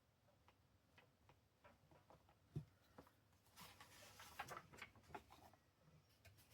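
Faint handling of paper and craft materials on a desk: scattered soft taps and clicks, with a short papery rustle about four seconds in.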